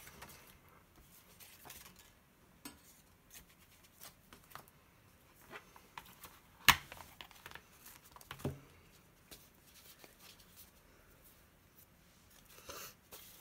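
Paper card stock and clear plastic stamp-set packaging being handled on a craft table: soft rustling and scattered light taps, with one sharp click about halfway through and a smaller knock a couple of seconds later.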